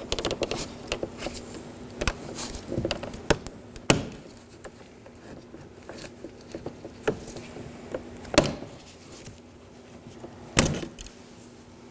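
Plastic trim tools prying the silver bezel off a 2014 Nissan Sentra's front exterior door handle, with scattered clicks and taps and several sharper snaps as the bezel's retaining tabs pop free. A faint steady hum runs underneath.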